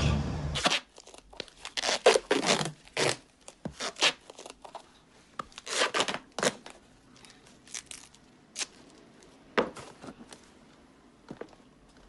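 Duct tape pulled off the roll in several short, loud rips as it is wound around a person's wrist. A low rumble from a pickup truck cuts off within the first second.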